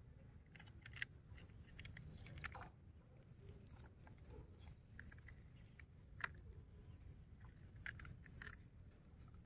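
Small toy dump trucks pushed by hand through wet mud and grit: faint crunching and scraping with a few sharp clicks, the sharpest about a second in and a little after six seconds, over a low steady rumble.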